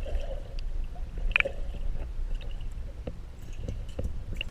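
Uneven low rumble of wind and handling noise on the microphone, with scattered light knocks and clicks. The rumble drops away suddenly at the very end.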